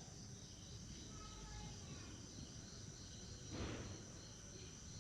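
Faint background with a steady high-pitched whine, and one brief rustle about three and a half seconds in.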